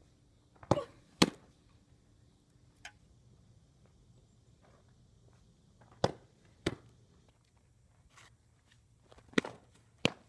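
Three softball pitches, each heard as a pair of sharp smacks about half a second apart, one of them the ball hitting the catcher's leather mitt.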